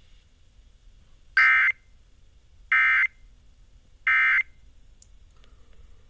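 Emergency Alert System end-of-message (EOM) data bursts: three short, identical, harsh digital squawks about a second apart. They mark the end of the alert test. They are heard through the small speaker of a Midland ER-310 emergency radio.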